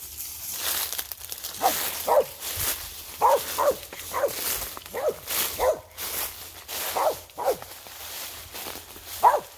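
A dog barking in quick pairs of short, high barks, a pair about every two seconds, over footsteps crunching through dry leaf litter.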